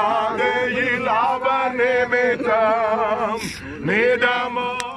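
A man singing a slow song in long, wavering phrases with strong vibrato, over a steady held drone note beneath. The phrases break briefly about two and a half seconds and three and a half seconds in.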